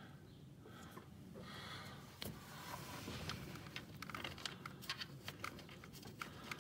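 Faint handling noise with scattered light clicks from about two seconds in: a gloved hand fitting a wrench onto a T-60 Torx socket on an oil filter adapter bolt, the metal tools lightly knocking.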